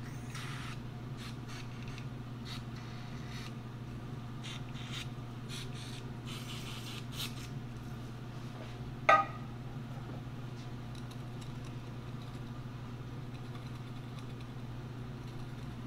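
Short scraping and wiping sounds of the lathe headstock's oil channel being cleaned out with a pick and rag, over a steady low hum. About nine seconds in comes one sharp metallic clink with a brief ring.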